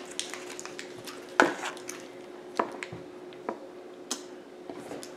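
Candy wrappers and a foil snack pouch handled at a table: a few short, sharp crinkles and taps, the loudest about a second and a half in.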